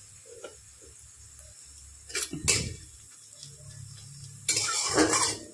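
Steel spatula knocking twice against a steel kadhai about two seconds in, then scraping and stirring through frying onions in it for the last second.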